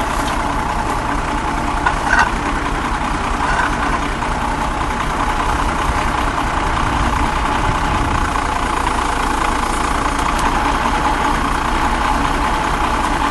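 Swab truck's engine running steadily, with a couple of short knocks about two seconds in.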